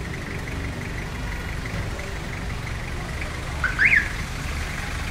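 Car engine running with a steady low rumble. A little before the end, a single short high squeak rises and falls in pitch.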